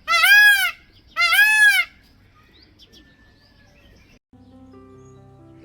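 A large bird gives two loud, drawn-out calls about a second apart, each rising and then falling in pitch. Music starts about four seconds in.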